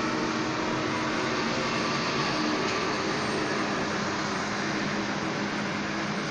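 Jet airliner engines running steadily on the apron: an even rushing hiss with a faint low hum underneath.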